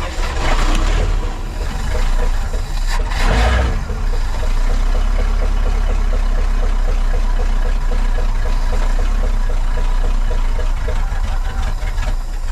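The bus's International Harvester SV304 V8 engine running after a restart. It surges louder about three seconds in, then settles into a steady idle, drawing its fuel from the newly rebuilt tank system.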